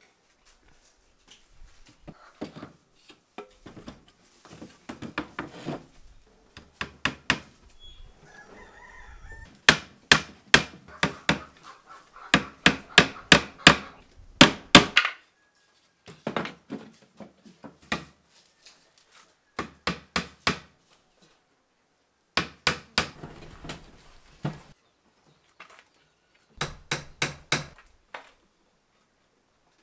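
Hammer striking the wooden frame of a hutch, in short runs of sharp blows with pauses between them; the hardest, densest run of blows comes about ten to fifteen seconds in.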